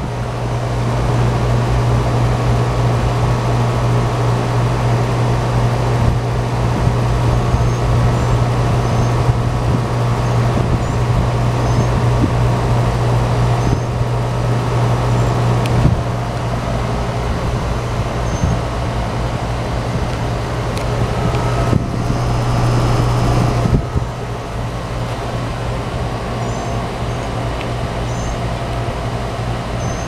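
Rheem central air conditioner's outdoor condensing unit running: a steady low hum under the even rush of its condenser fan. The deep hum drops away abruptly about four-fifths of the way through, leaving the fan sound a little quieter.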